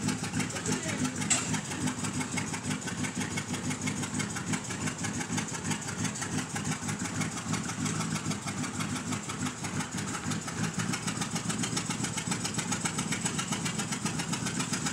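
Pickup truck engine idling steadily, with one short tick about a second in.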